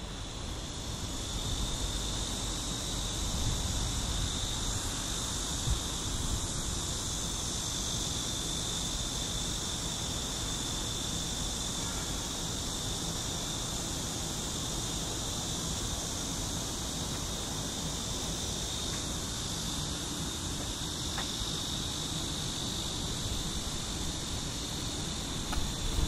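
Steady chorus of summer insects, a continuous shrill buzz that fades in over the first couple of seconds, with a low rumble underneath.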